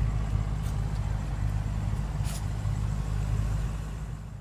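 A car engine idling: a steady low rumble that fades near the end.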